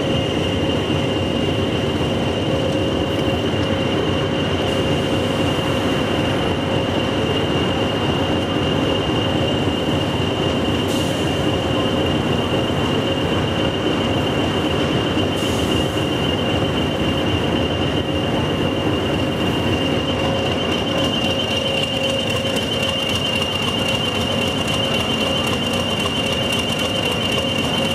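English Electric Class 20 diesel locomotive's engine running steadily, with the class's high, constant turbocharger whistle over a low rumble.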